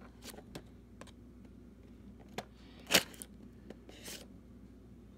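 Cutting the tape seal on a cardboard product box: a few light clicks and scrapes, one sharp snip about three seconds in, and a short scraping rasp a second later.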